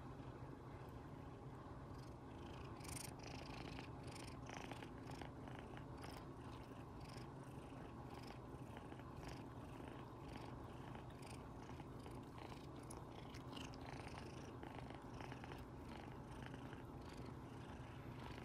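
Kitten purring steadily and contentedly, a continuous low rumble with a light crackle in it.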